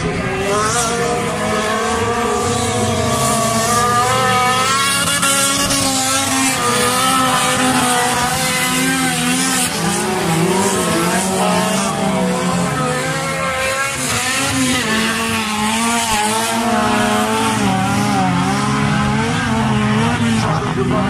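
Engines of several stock cars racing at once, their pitch constantly rising and falling as the drivers accelerate and lift off.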